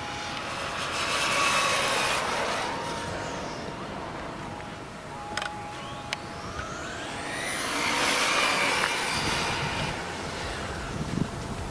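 HSP 1/10-scale short-course RC car's electric motor and drivetrain whining past at high speed on a 3S LiPo, twice: about a second in and again near 8 seconds. On each pass the pitch sweeps up as it comes and drops as it goes away. A few short clicks fall between the passes.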